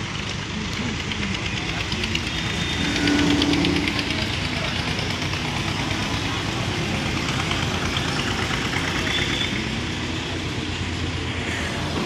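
Diesel engines running steadily: the Mahindra Yuvo 575 DI tractor idling and the hydra mobile crane's engine working as it hoists a steel pipe. A short, louder pitched sound comes about three seconds in.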